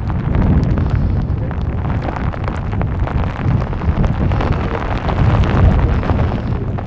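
Wind buffeting the phone's microphone: a low, ragged rumble that swells and eases in gusts, strongest about five and a half seconds in.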